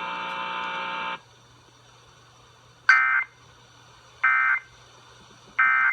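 Emergency Alert System audio: a steady electronic buzz for about a second, then the three short raspy data bursts of the EAS end-of-message (SAME) code, about 1.3 seconds apart, signalling the end of the alert.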